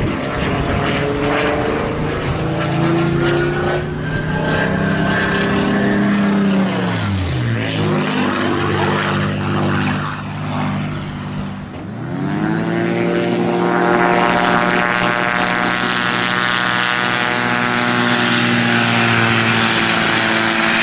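Citroen C1's 1.0-litre three-cylinder petrol engine under hard acceleration, revs climbing steadily. Twice, about seven and twelve seconds in, the revs drop sharply and then climb again.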